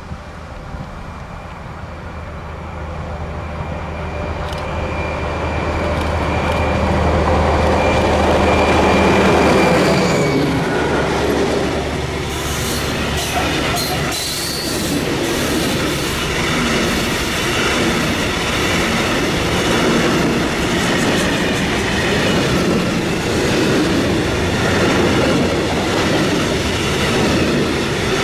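A freight train approaches and passes close by. The locomotive's steady drone grows louder over the first ten seconds or so. Then a long line of covered hopper wagons rolls past, with the rhythmic clickety-clack of wheels over the rail joints.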